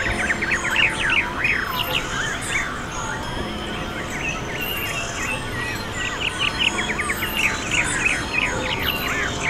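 A dense chorus of many birds calling at once: rapid, overlapping chirps and swooping notes with no let-up.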